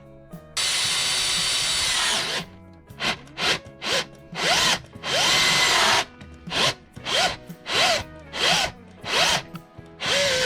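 Power drill with an 8.3 mm bit drilling out a stripped 8 mm bolt hole in the gearbox casing, to take a Helicoil thread insert. One steady run of about two seconds, then a string of short trigger bursts, the motor whining up and dropping back with each.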